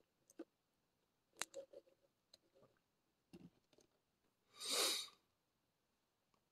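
One sniff through the nose, about half a second long, from someone with rhinitis; a few faint clicks come before it.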